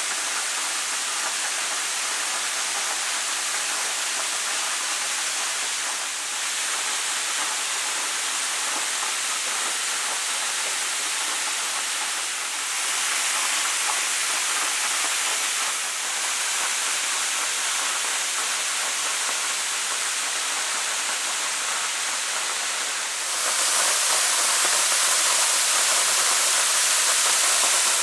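Waterfall: a steady rush of falling water that gets louder near the end.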